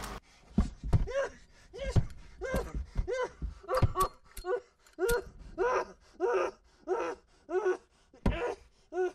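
A man gasping and panting in panic, short voiced breaths about one and a half a second, with a few low thuds among the first ones.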